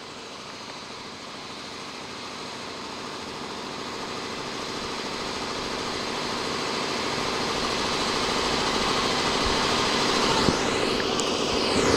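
EF64 electric locomotive starting up: its cooling blowers and auxiliary machinery run as a steady hum with several constant tones, growing steadily louder.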